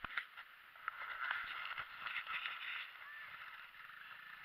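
Plastic saucer sled hissing and scraping over snow as it is towed, with scattered small knocks from bumps in the surface.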